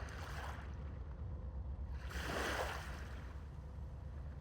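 Sea washing against a dock over a steady low rumble, with one louder wash lasting under a second about two seconds in.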